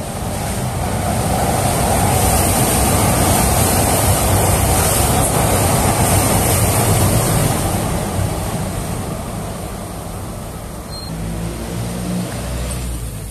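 Shredded boiled chicken sizzling in hot oil in a frying pan: a steady, loud hiss that swells over the first couple of seconds and eases after about eight seconds.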